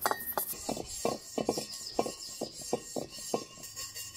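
Quick, irregular taps and clinks of a small tool on an old Mini Cooper's aluminium alloy wheel, about three or four a second, with the wheel's metal ringing faintly between them.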